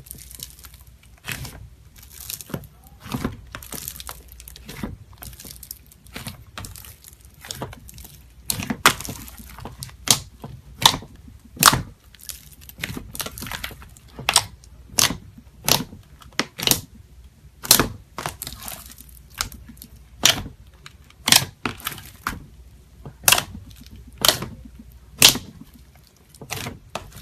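A hand squeezing and pressing a big batch of fluffy white slime full of small foam beads: crackling and crunching throughout, with a sharp snap about once a second from about a third of the way in as the hand pushes and lifts.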